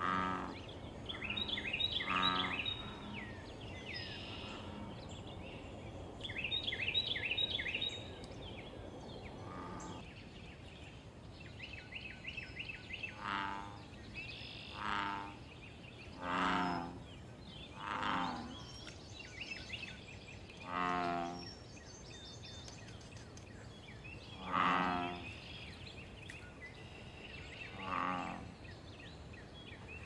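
American bullfrogs calling: a series of low, resonant croaks, each under a second, repeated every one to three seconds through the second half. High, rapid trills sound over the first few calls.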